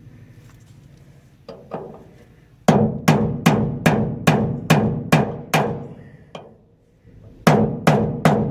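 Hammer strikes on metal, knocking a bearing's eccentric lock collar tight on a shaft. Two light taps, then a steady run of eight sharp, ringing blows about twice a second, then three more.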